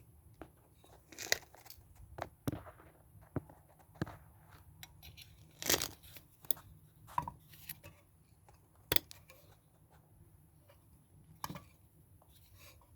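Scattered clicks, knocks and scrapes of metal parts of a washing-machine transmission being handled and fitted by hand, as a key is worked into the shaft's splines. Two sharper clicks stand out, about halfway through and again a few seconds later.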